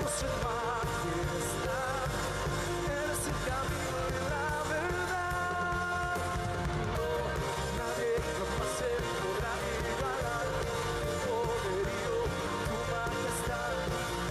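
Worship song: a singer's voice with a band.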